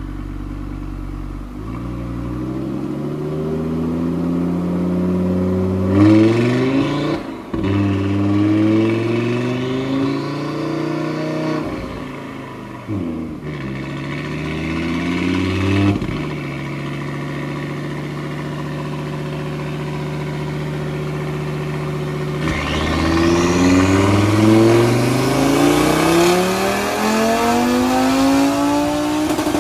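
Turbocharged Audi RS3 2.5-litre five-cylinder under full throttle on a chassis dyno, revving up through the gears with two sharp upshifts in the first half. It then holds a steady note for several seconds before a long final pull climbs in pitch to the end, with a high whistle rising at its start.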